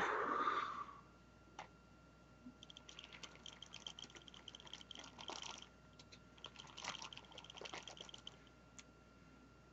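Small hard parts being handled and shuffled: two spells of light, rapid clicking and rattling, each a few seconds long.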